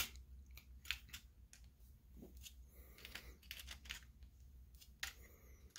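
Pliers clicking and scraping on the aluminium heat-sink fins of a projector lamp ballast board as the fins are bent over. A sharp click comes at the very start, then a few faint clicks and scrapes at intervals.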